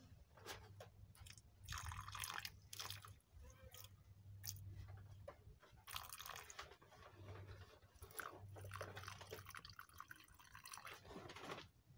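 Water poured from a plastic bowl into soil-filled plastic nursery bags, trickling and crackling faintly as it soaks into the dry soil, in several separate pours.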